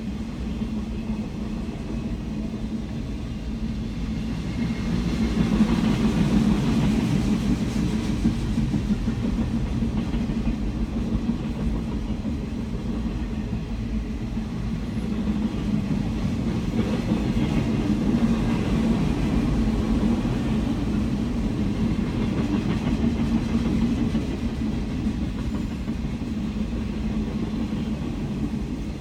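Freight train of empty flatcars rolling past, a steady rumble of wheels on rail that swells louder twice, heard from inside a car.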